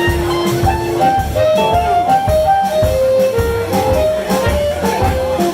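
Blues band playing live: a lead instrument holds one long note, then runs through a string of quick notes over bass and drums.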